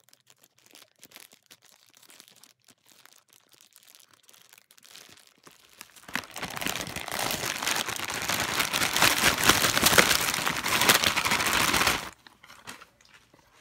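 Faint snipping and rustling as scissors cut open a plastic mailer bag. About six seconds in, loud crinkling of plastic packaging begins and lasts about six seconds, then stops abruptly.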